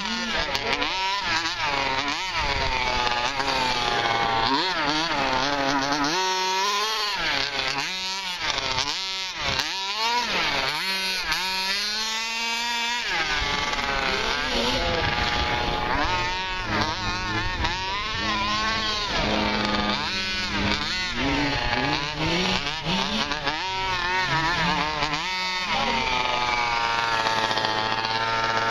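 Two-stroke petrol engine of a large-scale RC buggy, revving up and down over and over as it accelerates and slows around the track. The pitch rises and falls many times, with no break in the sound.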